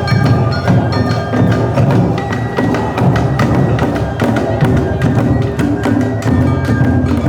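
Awa-odori festival music played live: a percussion-led ensemble with drums and clanging metal hand gongs keeping a steady, driving beat, with pitched instruments over it.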